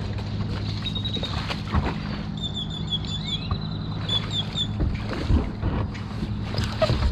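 A plastic micro skiff's hull knocking and scraping on a concrete boat ramp as it is pushed off into the water, with the loudest knocks near the end. A steady low hum runs underneath, and a quick run of high squeaky chirps comes in the middle.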